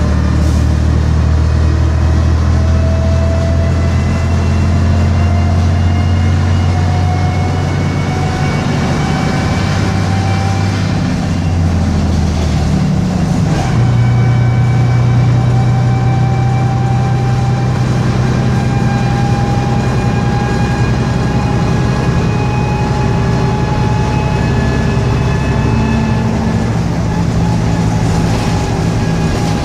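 Bristol RELL6L bus under way, its rear-mounted diesel engine pulling steadily with a whine that rises slowly in pitch as it gathers speed. About halfway through the engine note drops as it changes up a gear, then the whine climbs again.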